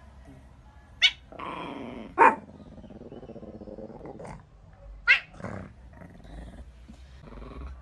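A black-and-white cat growling in long low stretches, broken by three short, sharp cries about one, two and five seconds in.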